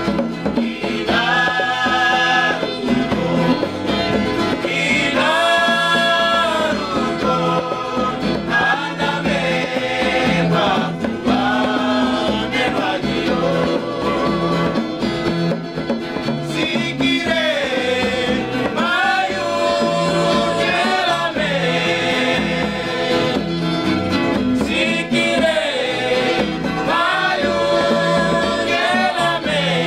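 A group of men singing a traditional Papuan acoustic song together, in long sung phrases over several strummed acoustic guitars.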